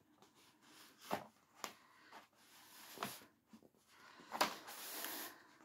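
Faint handling noise from a diamond painting canvas and its plastic cover: a few light clicks, then a brief rustle about four and a half seconds in.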